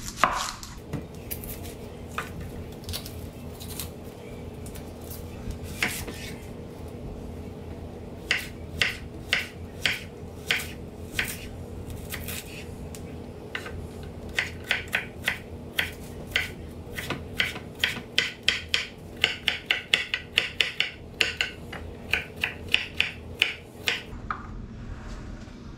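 Chef's knife chopping an onion on a wooden cutting board: sharp knocks of the blade against the board, a few scattered at first, then quick runs of chops over most of the second half.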